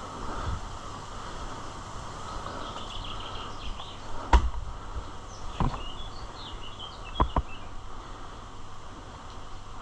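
Scattered airsoft gun shots: a sharp snap a little over four seconds in, the loudest, another over a second later, and a quick pair near the seven-second mark, with birds chirping in between.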